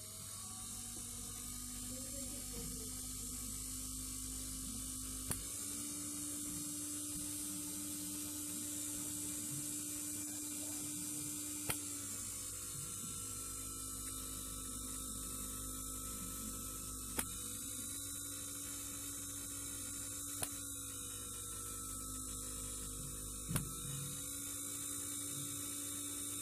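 Small brushed DC motor running unloaded off a homemade transformer power supply: a steady whine with a high brushy hiss, its pitch stepping slightly up and down a few times, with a low steady hum underneath and a few faint clicks.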